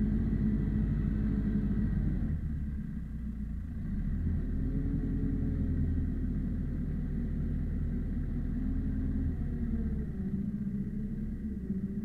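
Ursus C-355 tractor's diesel engine running, heard from inside the cab; its note drops about two seconds in, picks up again about two seconds later and shifts once more near the end.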